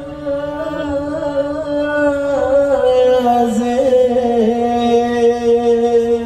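A man singing a long, held sholawat vocal line with slight ornamental dips in pitch, without drums.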